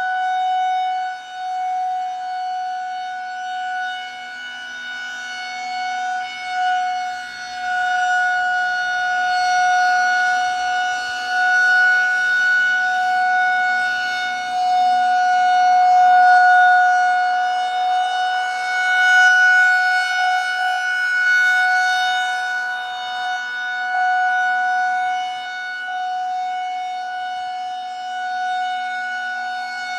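Federal Signal 2001-130 outdoor warning siren sounding one steady tone for a tornado drill. As its horn rotates, the sound swells and fades.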